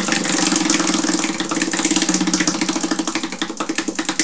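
Spinning prize wheel ticking as its pointer runs over the pegs. The rapid clicking slows steadily as the wheel loses speed, with the ticks separating and spreading out over the last second or two.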